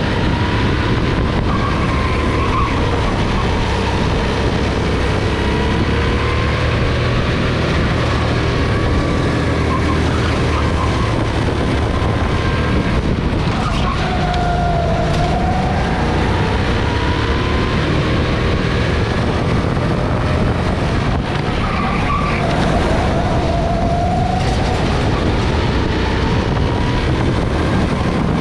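Go-kart engine running hard on track, its pitch rising and falling over and over with the throttle through the laps, over a steady rushing noise.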